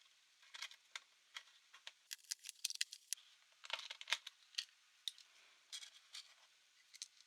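Light clicks, taps and short scrapes of small hard plastic and metal parts being handled while a Panasonic Toughbook CF-C2 laptop is worked on, with a quick flurry of clicks about two to three seconds in.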